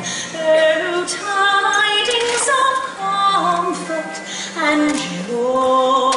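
A woman's voice singing a song over musical accompaniment, with long held notes near the end.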